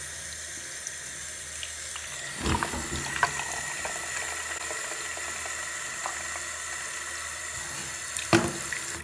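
Bathroom sink faucet running a thin, steady stream into a sink basin while a small plastic toy tank is filled under it. A few light knocks as the tank is handled, and a sharper knock near the end.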